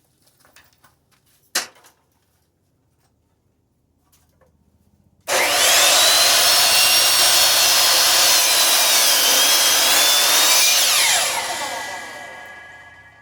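A few light knocks, then a 10-inch compound miter saw's motor switches on with a sudden high whine about five seconds in and runs at full speed, its pitch dipping a little as the blade cuts through a chunk of firewood. Near the end the motor is switched off and winds down, the whine falling in pitch.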